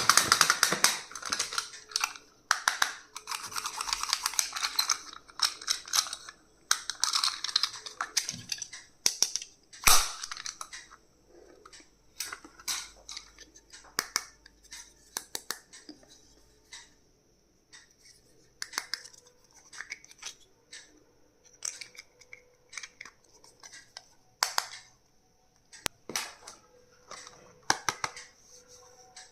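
Hands unwrapping and handling packaged plastic stationery. Crinkling and rustling bursts fill about the first ten seconds, followed by scattered sharp clicks and taps.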